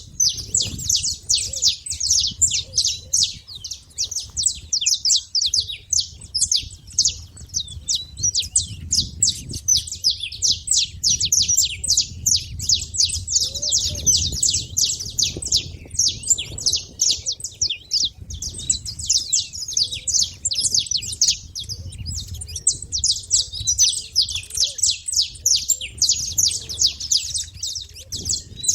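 Saffron finches chattering: a dense, unbroken stream of rapid high chirps.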